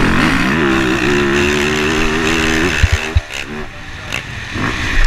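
Motocross bike engine heard from the rider's helmet camera, held at high revs for nearly three seconds, then the throttle drops with two heavy thumps about three seconds in, and the engine runs on lower and uneven.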